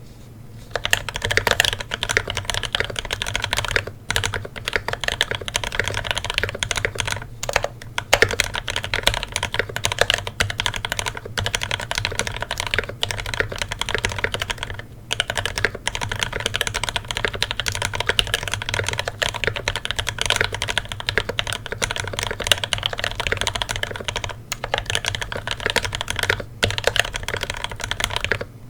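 Mechanical keyboard being typed on fast and continuously, starting about a second in with a few short pauses. It has ThicThock Marshmallow linear switches, lubed with Tribosys 3204 and filmed, on a brass plate.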